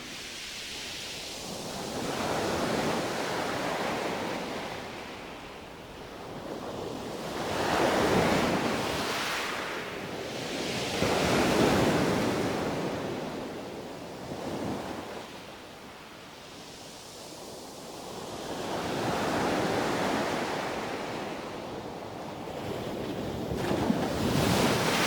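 Sea waves breaking on a beach, the surf swelling and falling back every few seconds, with some wind on the microphone.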